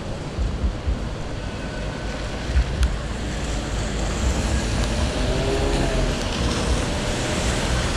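Wet city street ambience: wind buffeting the microphone over a steady hiss of rain and traffic on wet road, the hiss swelling in the second half. A single sharp click about three seconds in.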